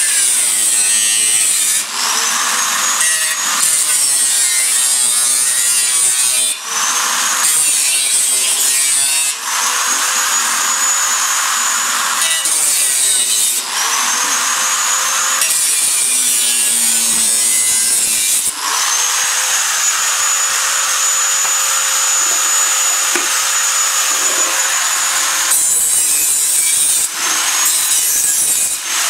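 Small hand-held grinder cutting through the thin steel wall of a can: a harsh grinding hiss over the motor's high whine. The cuts are broken by many brief pauses, and the whine rises again as the disc spins back up after each one.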